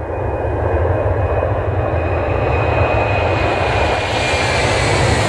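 Aircraft engine noise fading in, then running steadily: a deep rumble under a wide hiss, with a faint high whine above it.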